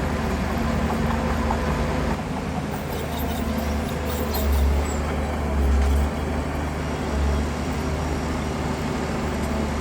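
Heavy diesel engine of earthmoving machinery running under load, a steady low rumble that swells briefly three times in the second half. Faint clatter is heard around the middle.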